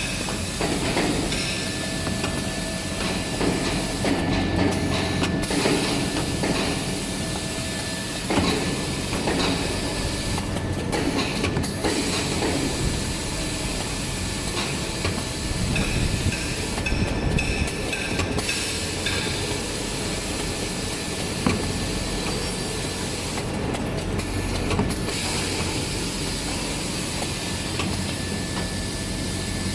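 Automatic maxi-roll toilet paper band saw cutting machine running through its cutting cycle, a steady mechanical clatter and hiss. The hiss drops out briefly about every six to seven seconds as the cycle repeats.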